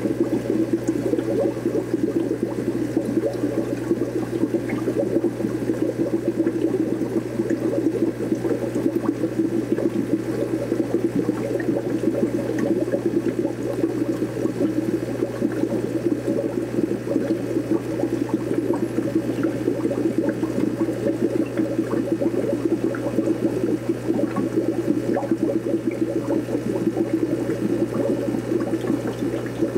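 Steady churning and bubbling of aquarium water from the tank's filtration, with a constant low hum beneath it and scattered faint small ticks.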